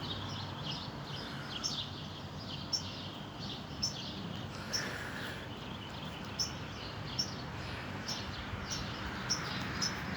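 Small birds chirping: short, high calls repeating about once a second over a steady low hum.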